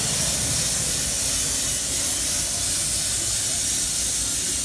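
A steady, loud hissing spray noise, strongest in the high range.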